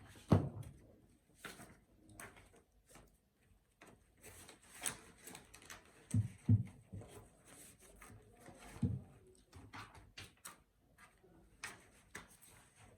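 Scattered knocks, thumps and rustling of objects being handled: one sharp thump near the start, two quick thumps about halfway through and another a few seconds later.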